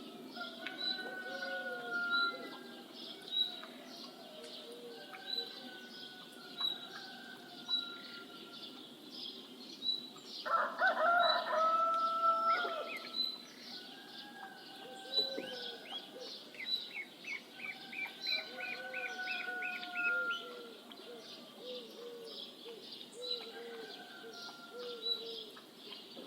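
A rooster crows once near the middle, a loud call of about two seconds, over a chorus of birds: a high chirp repeated about once a second, a quick trill, and short low calls.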